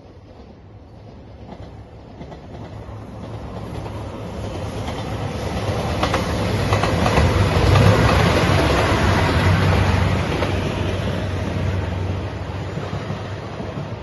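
JR Shikoku 2700 series diesel limited-express train passing: the low drone of its diesel engines and the rumble of its wheels on the rails grow louder, peak about halfway in as the cars go by, then fade as it moves away.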